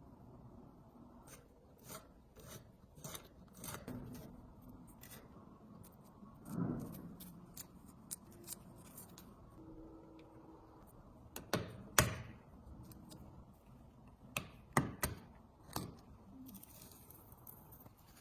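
Scattered, irregular clicks and knocks of small hand-handled parts of a tile cutter, with a duller thump about a third of the way in and the sharpest click a little past the middle.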